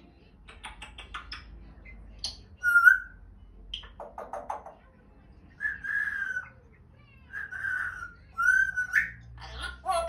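African grey parrot vocalizing: a quick run of clicks, then short whistles, the loudest about three seconds in, and several more whistles in the second half, the last one rising in pitch.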